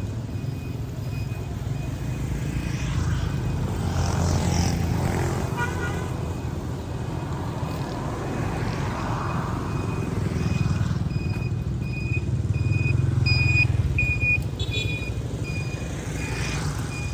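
Motorbike on the move: a steady low engine and road rumble, with a short high beep repeating about twice a second over it.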